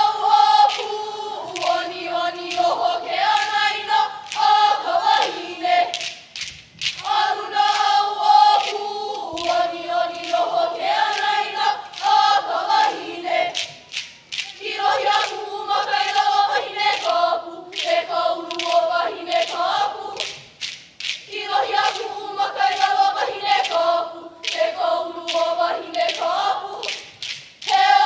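A large group singing a mele in unison for seated hula, in four phrases of about six seconds with a short breath between each. Sharp percussive clicks keep time throughout.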